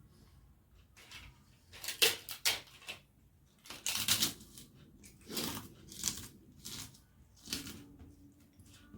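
Close-up eating sounds: irregular wet chewing and smacking of a mouthful of rice and curries, with about seven louder bursts.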